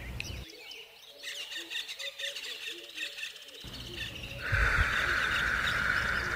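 Forest ambience of birds chirping and calling. About two-thirds of the way in, a steady high hiss or buzz comes in and becomes the loudest sound.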